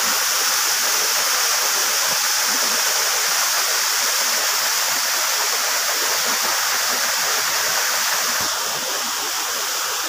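Waterfall rushing in a steady, even roar of falling water, a little softer near the end.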